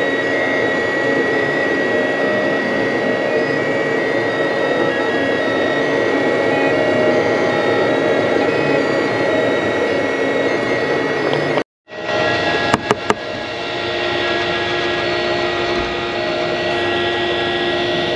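FLSUN delta 3D printer running a print: its stepper motors and fans whir steadily with a high, steady whine. After a short break about two-thirds through, a second 3D printer, the Sidewinder, is heard printing: a few clicks, then steady fan and motor noise with a lower hum.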